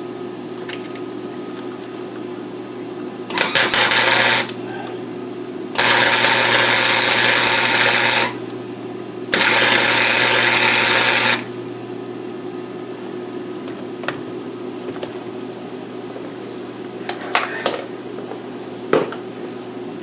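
A handheld power tool run in three short bursts, the middle one the longest at about two and a half seconds, over a steady hum, followed by a few light knocks near the end.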